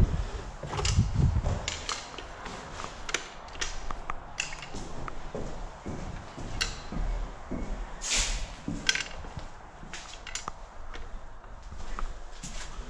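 Irregular knocks, clicks and scuffs of someone picking up and handling an old pistol and walking over bare wooden floorboards, with a low thud near the start and a brief scraping hiss about eight seconds in.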